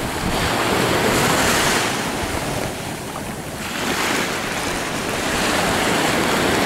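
Small waves washing in over the shallows, the rush of surf swelling and fading twice, with wind buffeting the microphone.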